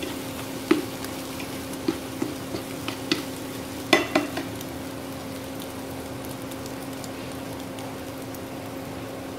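Scrambled egg sizzling steadily in a nonstick frying pan while a slotted turner scrapes and taps against the pan several times in the first four seconds, then is left still. A steady hum runs underneath.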